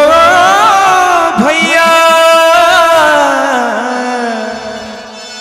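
Male singer holding one long, wavering high note in a devotional bhajan, over a steady harmonium-like drone, with a few hand-drum strokes about a second and a half in; the note fades away over the last two seconds.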